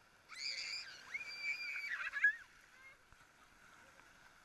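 A young child's high-pitched squeal in two long cries lasting about two seconds, wavering near the end. Faint surf washes behind it.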